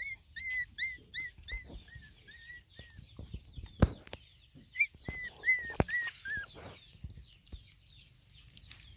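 Young puppy whimpering, a run of short high-pitched cries about three a second that stops about 3 s in and starts again around 5 s. Two sharp knocks fall between the cries.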